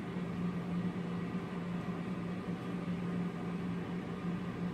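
Steady kitchen appliance hum: a constant low tone under a soft, even hiss, like a fan motor running.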